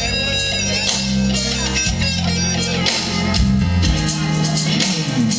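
Live band music played through a PA during a sound check: guitar over a heavy bass line that changes note every second or so.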